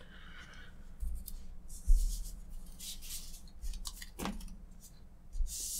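Stack of Magic: The Gathering cards being gathered and handled on a playmat: a series of rustling, sliding swishes with a few soft knocks against the table.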